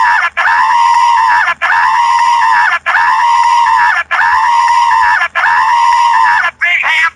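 A high-pitched scream, the same cry repeated about six times in a row like a looped clip, each lasting about a second and a quarter with a brief break between. Near the end it gives way to a shorter, wavering cry.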